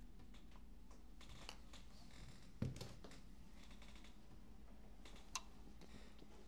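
Faint clicks and light taps of small objects being handled, with a sharper knock about two and a half seconds in and a small click a little past five seconds.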